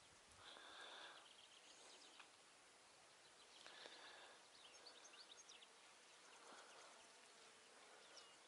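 Near silence: faint outdoor ambience, with a few faint short bird chirps in the middle.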